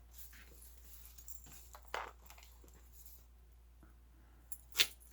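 Handling noises from a small metal chain being laid against a book: light rustles and scrapes, with one sharp click near the end.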